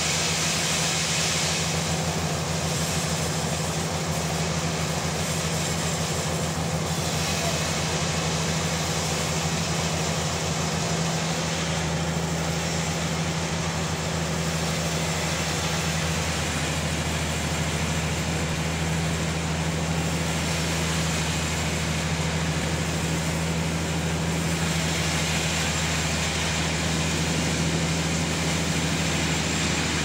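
Sawmill machinery running steadily: a constant engine drone with a wide hiss over it.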